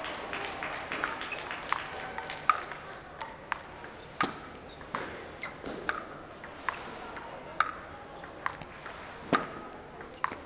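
Table tennis ball clicking sharply off the paddles and the table as it is hit back and forth, each click with a short ring, about one to two a second and unevenly spaced. Fainter ball clicks come from other tables in play.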